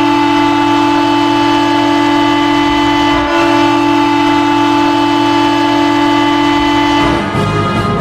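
Ice hockey goal horn blowing one long, steady, loud blast with a brief dip about three seconds in. It cuts off about seven seconds in as the pep band's brass goal song begins.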